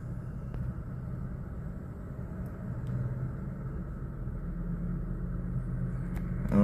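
Low, steady vehicle rumble heard from inside a stopped car's cabin, with traffic crossing in front. It swells slightly in the second half.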